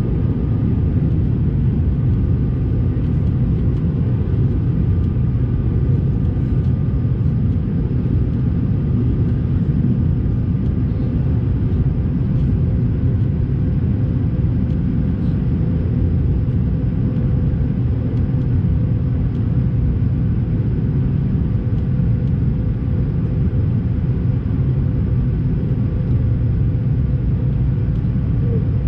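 Steady low roar inside the cabin of an Airbus A220-300 in flight: its Pratt & Whitney PW1500G turbofan engines and the airflow over the fuselage, with a faint steady whine above the rumble.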